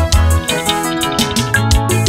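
Instrumental background music with a heavy bass line, a pitched melody and a steady drum beat.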